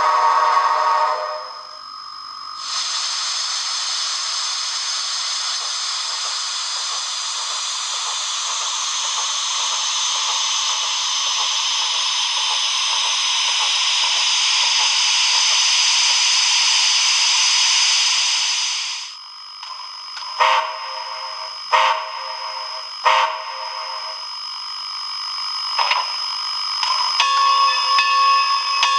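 Sound decoder of an HO scale 2-6-6-2 steam locomotive model, heard through its small on-board speaker. It opens with the end of a steam whistle blast, then gives a long, steady steam hiss of about sixteen seconds. After that come a few short, quieter bursts and clanks, and a pitched sound begins near the end.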